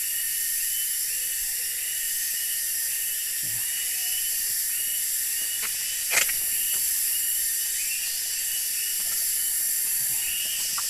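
Steady high-pitched buzzing of insects, with a repeating chirp pulsing through it. A single sharp click, the loudest thing here, comes about six seconds in.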